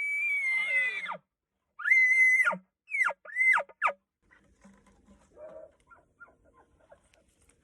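Bull elk bugling: a high whistling note that slides down and cuts off about a second in, then a shorter held whistle that falls away, and three quick descending chuckle notes. Faint rustling follows.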